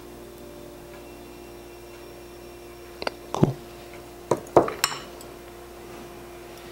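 Metal hand tools clinking and knocking as the needle-nose pliers and soldering iron are pulled away from a helping-hands clamp and set down: a cluster of sharp clinks from about three to five seconds in, over a faint steady hum.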